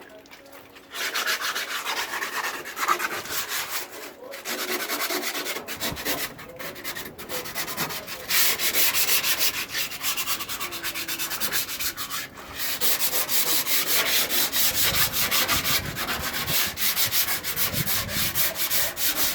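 Sandpaper scraping over dried body filler on a car's body panel in quick, repeated back-and-forth strokes, with a few short pauses.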